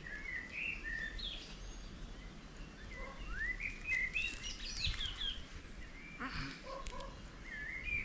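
Birds singing and chirping in short rising, warbling phrases, several times over. A few faint taps of a knife on a chopping board as tomatoes are cut.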